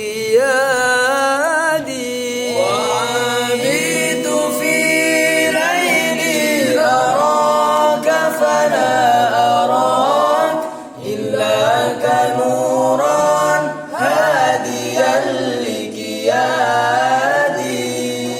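Unaccompanied al banjari group vocals singing an Arabic devotional song in ornamented, melismatic phrases, with a long note held steadily beneath the melody. The singing pauses briefly twice, at about 11 and 14 seconds in.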